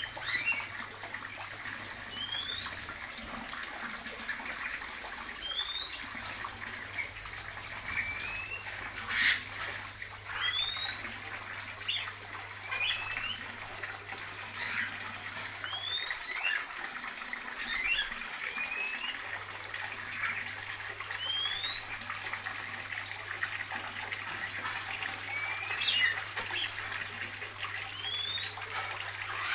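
Small aviary birds chirping, a string of short rising chirps every second or two, with a sharper call now and then. Under them runs a steady water-like rushing hiss and a low hum that stops for a few seconds in the middle.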